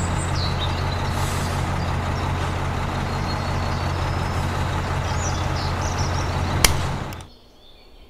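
Small electric motor of a toy concrete mixer running steadily with a hum and rattle as it turns the drum, then switched off with a click near the end and winding down.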